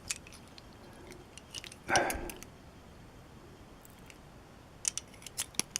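Small metal lock parts (pins and springs) being handled while a lock is taken apart: faint light clicks, a short soft thud about two seconds in, and a quick run of sharp little ticks near the end.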